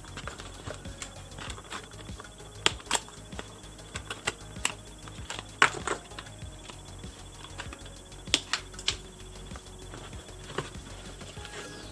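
Irregular light clicks and taps of plastic and cardboard doll packaging being handled as a Barbie doll is freed from its box.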